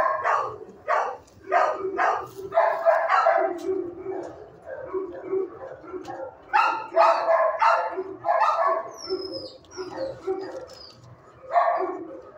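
Shelter dogs barking in the kennels, repeated sharp barks coming in clusters with short gaps between them.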